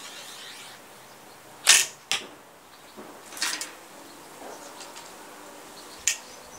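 A 28 lb bamboo horse bow with walnut siyahs is loosed: the string gives a sharp snap on release, and a second crack follows about half a second later. A sharp click comes near the end as the next arrow is nocked.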